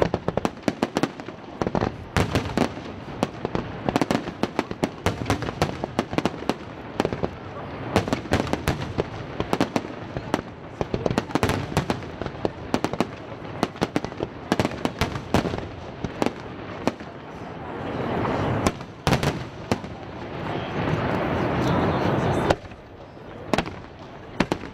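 Aerial fireworks display: shells and comets firing and bursting in quick succession, a dense string of sharp bangs and pops. Near the end a thick, continuous crackle swells for a couple of seconds and cuts off suddenly.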